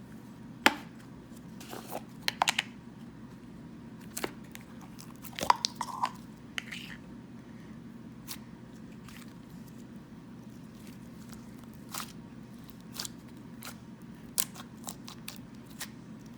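Buttery, fluffy slime being handled close to the microphone, giving off scattered, irregular clicks and pops as it is poked, squeezed and stretched, over a low steady hum.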